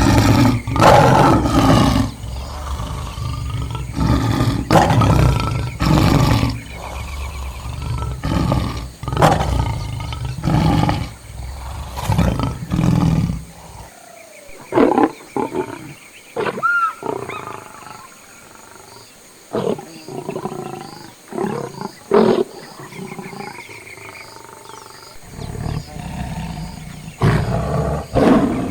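Lions growling and roaring in a string of loud, rough calls, packed close together for about the first half, then shorter and more spaced out.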